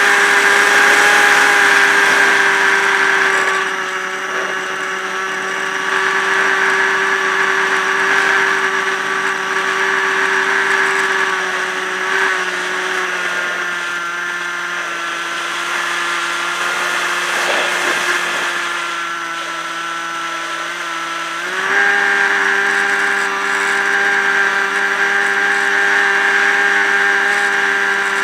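Electric motor and pusher propeller of a Multiplex EasyStar RC plane in flight, heard from a camera on the airframe: a steady whine over a hiss of rushing air. About twelve seconds in the pitch drops a little as the motor slows, and about twenty-one seconds in it climbs back up.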